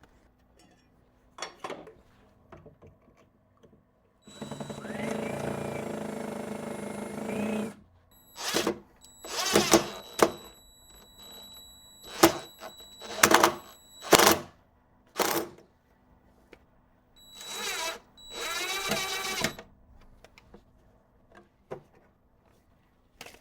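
Cordless drill driving screws into wood. Its motor runs once for about three and a half seconds, then in about a dozen short trigger bursts.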